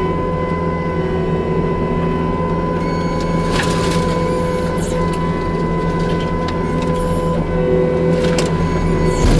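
New Holland C327 diesel skid steer running with its McLaren RM60 mulching head spinning: a steady engine hum under a wavering high hydraulic whine, with a few brief crunching bursts about three and a half seconds in and near the end as the head chews material.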